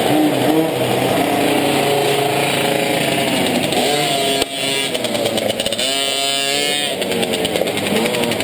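Several small two-stroke minimoto (pocket bike) engines idling and blipping their throttles at once, their overlapping pitches wavering up and down. A sharp knock comes about four and a half seconds in, and about six seconds in one engine is revved up and back down.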